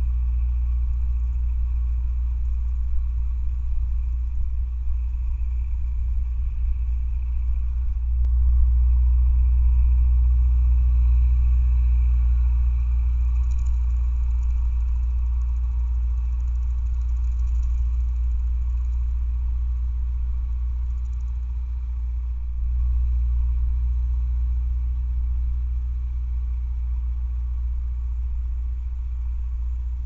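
Massey Ferguson tractor engine running steadily while it pulls a rotary cutter mowing the field, heard as a low, continuous drone through a trail camera's microphone.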